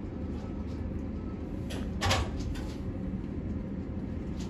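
Eiffel Tower lift cabin in motion: a steady low rumble with light clicks and rattles, and a louder clatter about two seconds in.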